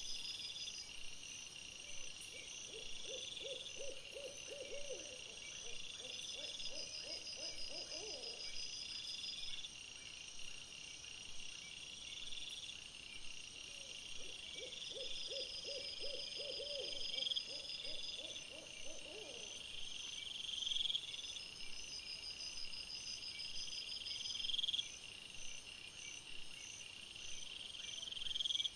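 Owl hooting twice, each time a long quavering series of rapid low hoots lasting several seconds, the second starting about twelve seconds after the first.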